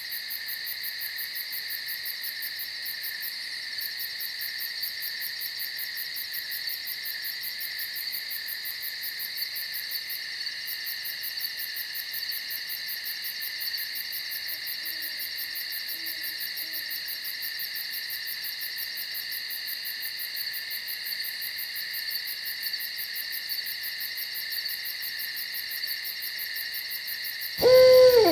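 Night insects chirp in a steady, rapidly pulsing high-pitched chorus. Near the end an owl gives one loud hoot that slides down in pitch.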